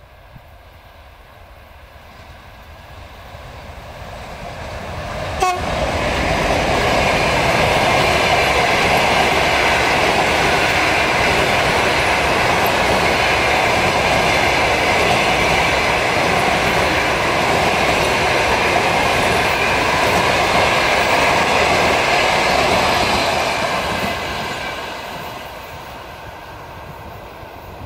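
A TEP70 diesel locomotive pulling a passenger train grows louder as it approaches and passes with a sharp jump in sound about five and a half seconds in. The passenger carriages' wheels then run loud and steady on the rails for about seventeen seconds before fading as the train moves away near the end.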